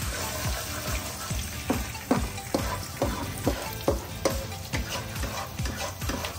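Curry leaves and whole spices (peppercorns, cumin, mustard seeds, fenugreek) sizzling in hot oil in a non-stick kadai as they are stirred with a wooden spatula, with many short clicks and taps. This is the tempering stage, the spices and leaves frying in the oil.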